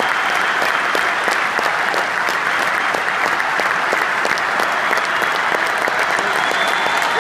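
A large arena crowd applauding steadily: a dense, continuous wash of clapping.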